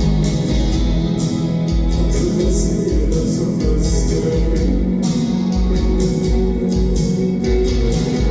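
A band playing live: guitar and bass over a steady kick drum with cymbal hits.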